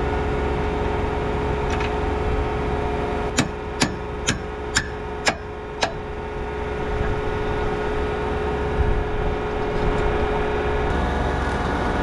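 John Deere tractor engine idling steadily, with six sharp metal-on-metal taps, about two a second, a few seconds in, as a new shear bolt is fitted to a chisel plough leg.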